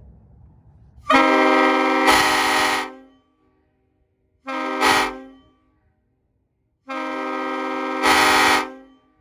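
Leslie K-series multi-chime air train horn blown three times: a blast of about two seconds, a short one of about one second, then another of about two seconds. Each blast sounds a steady chord of several notes, and the two longer blasts swell louder partway through.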